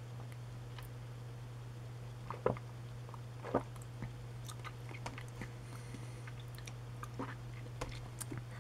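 Quiet mouth sounds of someone tasting a drinkable lemon-lime yogurt: a few soft swallows and lip smacks, spaced out, over a steady low hum.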